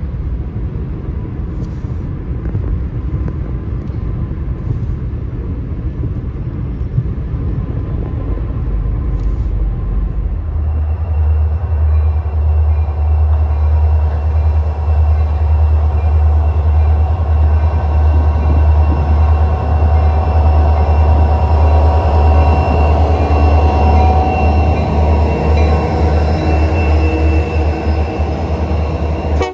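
Road rumble inside a moving car for about the first ten seconds. It then gives way abruptly to the steady low drone of Union Pacific and Norfolk Southern diesel freight locomotives approaching and passing close by, with whining tones over the engine noise.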